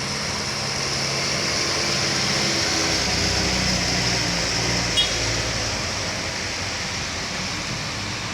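A motor vehicle engine running steadily with road noise, its low hum shifting slightly in pitch; a single brief click about five seconds in.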